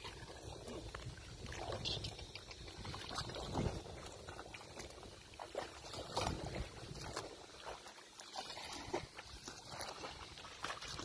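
Muddy paddy water sloshing and splashing in irregular strokes as a water buffalo wades and drags a wooden leveling board through a flooded rice field.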